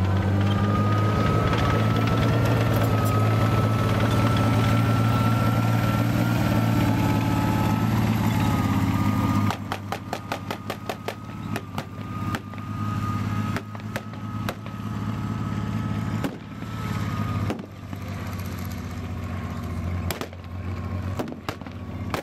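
A heavy military vehicle's engine running loud and steady close by, with a thin steady whine over it. About nine seconds in it drops away and a rapid run of blank gunfire cracks out, then scattered single shots over the quieter engine.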